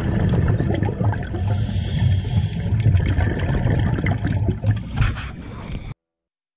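Muffled underwater noise picked up by a GoPro in its dive housing: an irregular low sloshing and bubbling with scattered clicks. It cuts off abruptly near the end.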